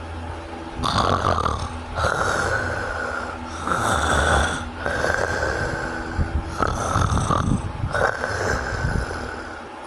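A person snoring in harsh, rattling breaths that come in quick, irregular succession, about six in the stretch, over a steady low rumble. This is snoring that the uploader presents as obstructive sleep apnea.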